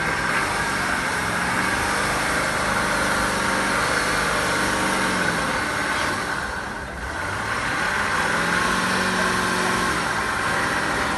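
Off-road 4x4's engine running under load as the vehicle works its way up a steep muddy bank. It dips briefly about two-thirds of the way through, then builds again.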